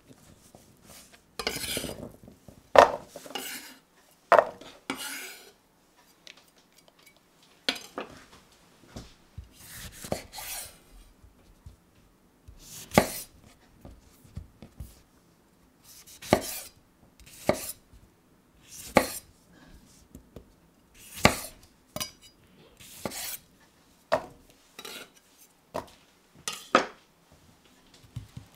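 Chef's knife slicing carrot, tomato and red onion on a wooden cutting board: single sharp knocks of the blade meeting the board, irregularly spaced every second or two, with softer rustling and scraping of the vegetables between cuts.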